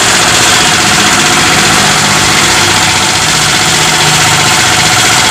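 Tire-changing machine for tubeless motorcycle tires running with a loud, steady mechanical noise.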